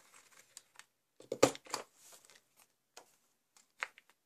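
Envelope Punch Board's punch pressed down on patterned card stock to round its corners: a sharp click about one and a half seconds in, a smaller one just after, and another near the end, with light paper rustling between.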